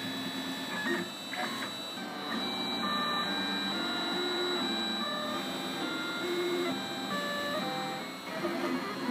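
Printrbot Simple 3D printer at work: its stepper motors whir in short tones that jump from pitch to pitch as the print head makes quick moves, over a steady thin high whine.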